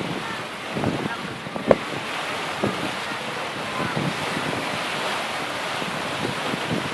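Wind buffeting the microphone over the wash of sea water, with a sharp knock about two seconds in and a smaller one a second later.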